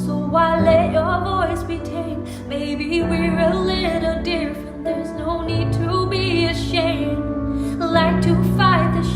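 A woman singing a slow song with vibrato on her held notes, over sustained accompaniment chords that change every few seconds.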